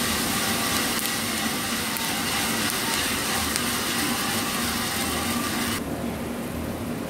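Freshly roasted coffee beans pouring out of a drum roaster's door into the cooling tray, a dense rattling hiss of beans over the steady noise of the roaster and cooling-tray fan and stirring arms. About six seconds in, the bright hiss of the pour stops abruptly, leaving the lower machine noise.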